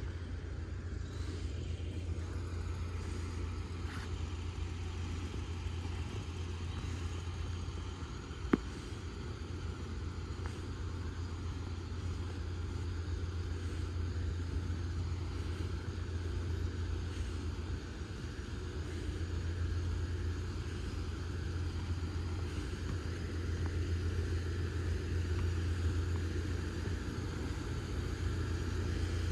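Diesel railcar idling at a station platform, a steady low engine hum that grows louder in the second half. There is a single sharp click about eight and a half seconds in.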